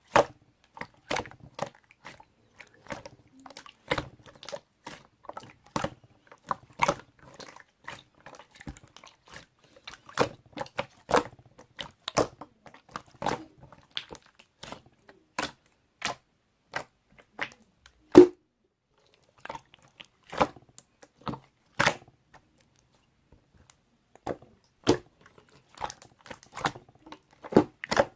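Slime being squished and pressed by hand, giving irregular sharp pops and clicks, a few a second, with a couple of short pauses and one loud pop about two-thirds of the way through.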